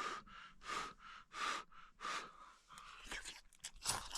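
Person eating hot ramen: a run of short, noisy mouth sounds about every three quarters of a second, then quicker clustered ones near the end.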